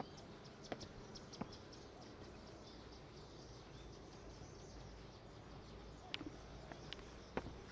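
Faint outdoor garden ambience: distant birds and insects chirping over a low steady hush, with a few scattered sharp clicks, more of them near the end.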